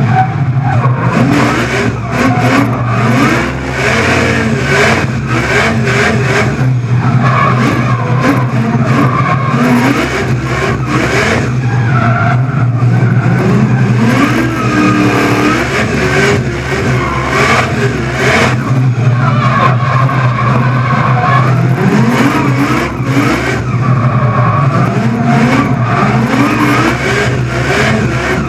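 Vortech-supercharged LS2 V8 of a Holden VE Commodore drift car revving hard, its pitch rising and falling again and again under throttle, with tyres squealing as it slides.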